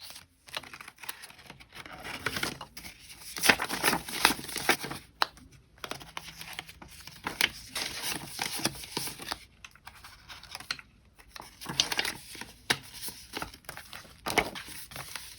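Paper bills and a cash envelope rustling and crinkling as notes are handled, slipped in and counted by hand, in irregular bursts of rustling throughout.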